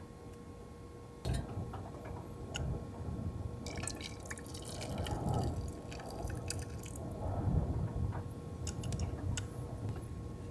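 Gusts of strong wind rumbling against a parked car, swelling and easing, with scattered small clicks and clinks and a short flurry of them in the middle.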